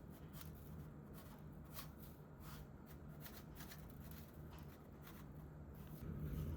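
Soft rustling and light clicks of hands handling food and kitchen things, over a steady low hum that grows louder near the end.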